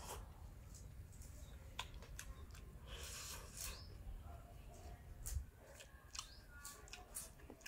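A person eating a fried noodle-and-egg cake with a spoon: soft chewing and mouth clicks, with a few brief hissy slurps or breaths and light scrapes of the spoon through the food.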